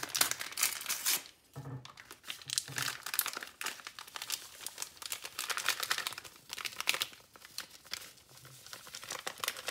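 Plastic pouch of instant vanilla pudding mix crinkling and tearing open, in several bursts of crackling.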